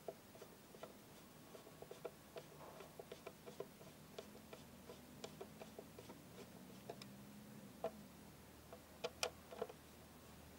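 Faint, irregular clicking and ticking of a screwdriver turning screws into a blender's plastic motor housing, with a few louder clicks about nine seconds in.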